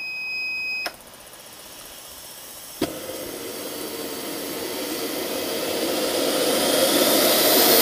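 Behotec J66 model jet turbine starting up: a steady electronic beep for about a second, then a whirring hiss, a sharp pop about three seconds in as it lights, and a steadily louder rushing roar with a high whine rising in pitch as the turbine spools up.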